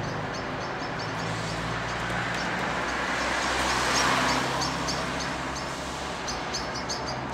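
Street ambience: steady traffic noise with a car passing by about four seconds in, and small birds chirping in short repeated runs.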